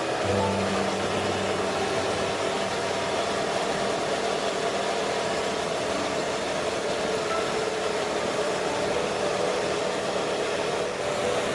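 Motorcycle engine, likely the rider's Suzuki SV650 V-twin, running steadily on the move, under heavy wind rush over the microphone. A lower engine note comes in just after the start and fades within a couple of seconds.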